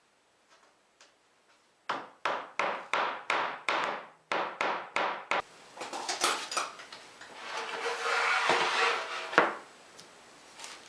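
A run of quick, even hammer blows on wood, about three a second for a few seconds. Then looser handling and rubbing sounds on the workpiece.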